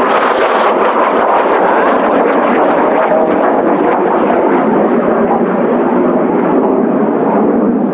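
Kawasaki T-4 jet trainers' turbofan engines passing low overhead: a loud, steady rumble with a brief hiss in the first half second, falling away near the end.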